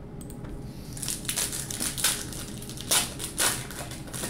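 A 1998 Score football card pack being torn open and its foil wrapper crinkled by hand. It is a run of crackling rustles starting about a second in, loudest twice near the middle.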